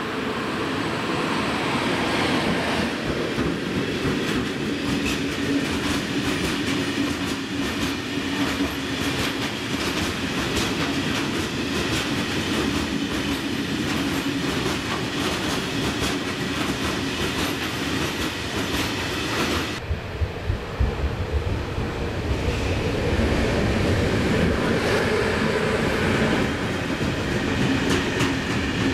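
A long freight train of coal hopper wagons rolling past behind a PKP Cargo Siemens Vectron electric locomotive. The wheels rumble steadily, clatter rhythmically over the rail joints and give a faint steady squeal. About two-thirds of the way through the sound changes abruptly, with a few heavy knocks and a deeper rumble.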